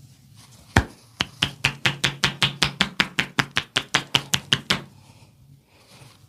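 Hands striking the body in quick rhythmic massage percussion, about five sharp slaps a second for some four seconds, the first slap the loudest.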